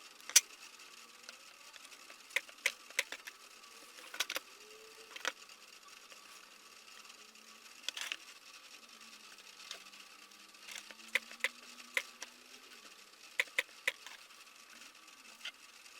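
Battery spot welder firing, welding nickel strip onto the pack's new cells: sharp, very short snaps, irregularly spaced and often in quick pairs or threes, over a faint steady background.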